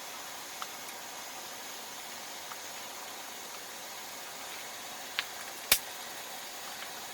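Steady even hiss with a few short clicks, the loudest a sharp click about three-quarters of the way through.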